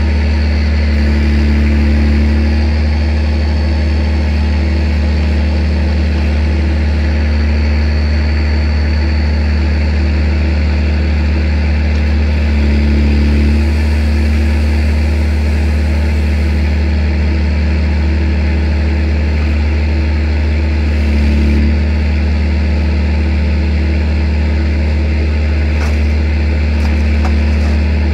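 Vehicle engine running steadily to power a hydraulic crane with a log grapple. Its note swells briefly three times while the crane works.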